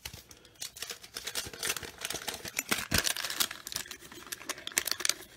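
Paper and card handling: a dense run of small crackles, rustles and taps as a wax card pack and baseball cards are handled, with a sharper knock about three seconds in.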